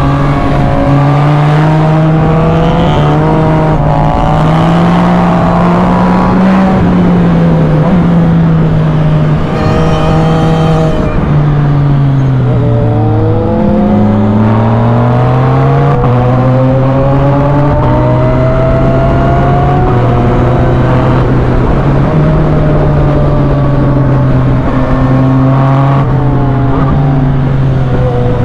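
Yamaha MT-09 SP's three-cylinder engine through an Arrow full exhaust system, ridden under load: the engine note rises and falls with throttle. It dips about twelve seconds in, then climbs steadily for several seconds before holding fairly even.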